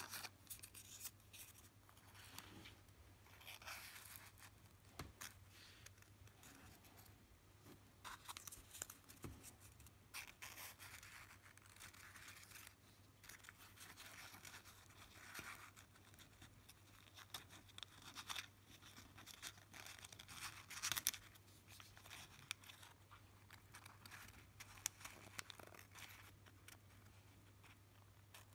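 Faint rustling and crinkling of folded origami paper units being handled and tucked into one another, with scattered small clicks from the paper edges.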